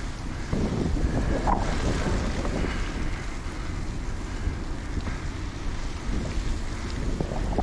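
Wind buffeting the microphone of a camera riding along on a moving bicycle: a steady, low, rushing rumble that rises and falls.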